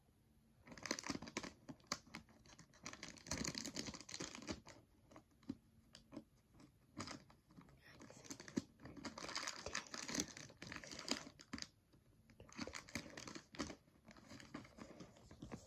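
Pokémon trading cards and a plastic card sleeve being handled: irregular bursts of crinkling and rustling with light clicks, pausing briefly a couple of times.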